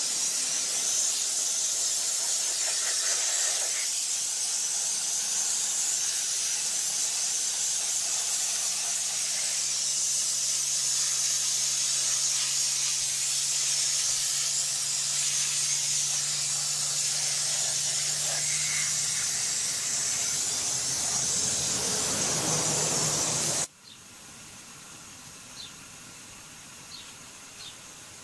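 Water from a garden hose spraying into a bath of chopped flax: a steady hiss with a low hum under it. It cuts off suddenly near the end, leaving a much quieter background with a few faint ticks.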